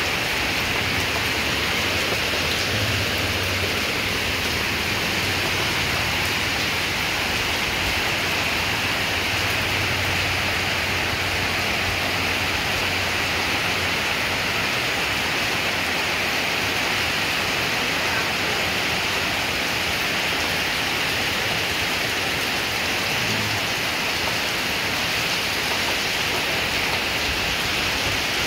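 Heavy rain pouring down steadily onto the ground and standing water, an even, unbroken hiss.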